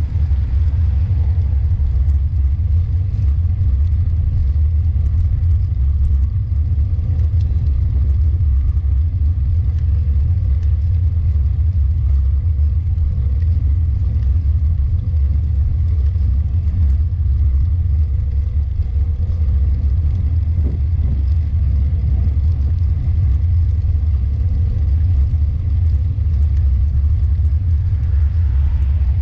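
Wind buffeting the microphone of a camera riding along on a moving road bike: a steady low rumble.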